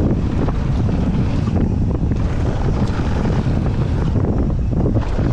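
Wind buffeting the microphone over the rumble of a downhill mountain bike's tyres rolling fast over dry dirt and loose rock, with frequent small clicks and rattles from the bike.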